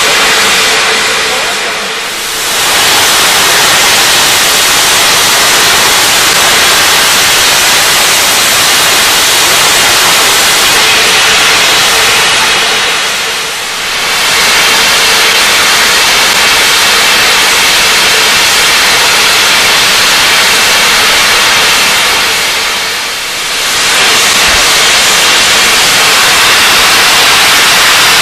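Steam locomotive letting off steam: a loud, steady hiss that dips briefly three times, about ten seconds apart.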